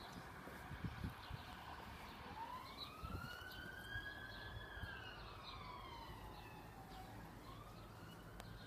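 Faint emergency-vehicle siren wailing: one slow rise and fall in pitch over about five seconds, with the next rise starting near the end, over a low steady background rumble.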